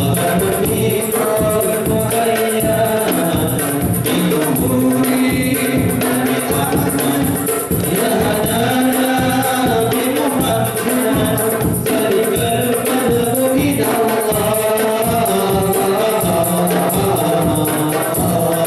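Men's voices singing a qasidah (Malay Islamic devotional song) in chorus into microphones. Hand-beaten frame drums, a large red barrel drum and a jingling tambourine keep a steady rhythm beneath the singing.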